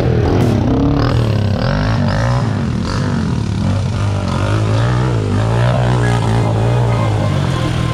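ATV engine running under load on a trail, revving up and down with its pitch rising and falling repeatedly.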